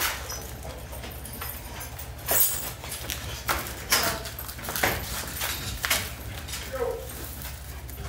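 Dairy cows' hooves knocking and shuffling on a concrete barn floor, with about five sharp knocks through the middle, over a steady low hum.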